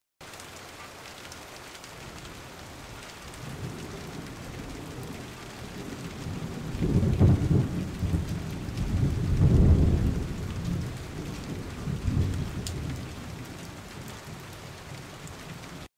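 Steady rain with rolling thunder: the rumbles build from a few seconds in, are loudest about seven and ten seconds in, and fade back to the rain alone near the end, where the sound cuts off suddenly.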